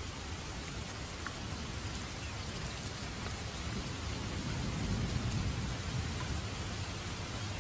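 Steady rain falling, with a low roll of thunder that swells past the middle and eases off near the end.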